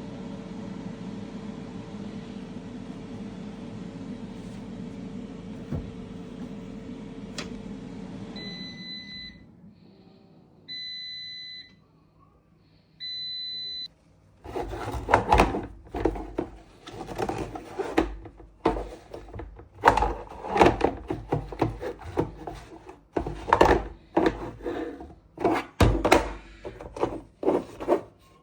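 Washing machine running with a steady hum that winds down about a third of the way in, followed by three electronic beeps, the machine signalling the end of its cycle. Then a run of irregular rubbing and scraping strokes.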